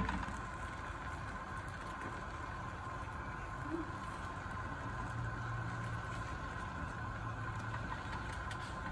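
A steady mechanical hum with a faint high-pitched whine over it.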